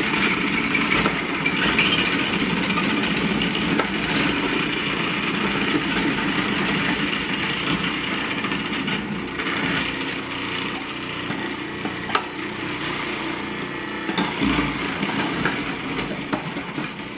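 Cuisinart food processor motor running steadily while its grating disc shreds raw potatoes pushed down the feed tube, with a few sharp clicks over the noise.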